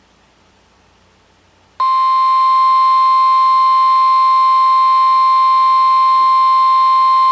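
Faint radio hiss, then about two seconds in the NOAA Weather Radio 1050 Hz warning alarm tone starts abruptly: one loud, steady, high beep from an Oregon Scientific WR-3000 weather radio's speaker. The tone signals that a warning broadcast follows.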